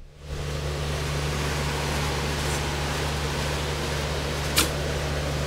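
Steady whir and low hum of a fan-driven machine, with one short click about four and a half seconds in.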